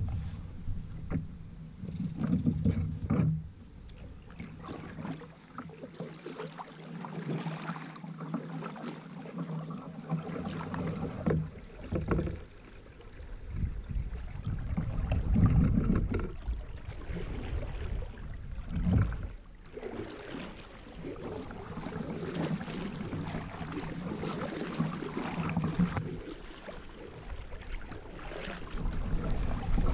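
Kayak paddling on a river: the paddle blades splash into the water and water swishes along the hull, rising and falling in uneven surges.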